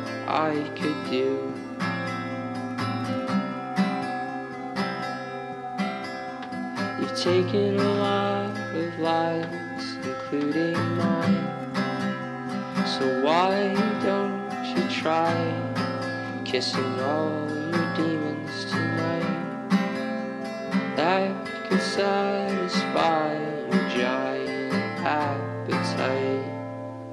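Instrumental passage of a song: acoustic guitar plucked and strummed, many notes sliding upward in pitch, over steady low bass notes. It dies down right at the end.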